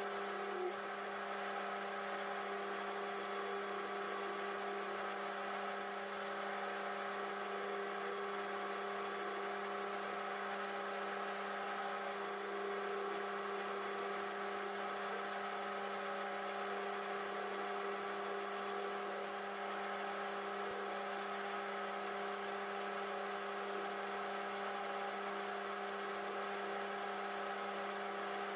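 Metal lathe running steadily while an insert cutting tool turns down the outside diameter of a solid steel bar: a steady machine hum and whine made of several held tones over an even hiss.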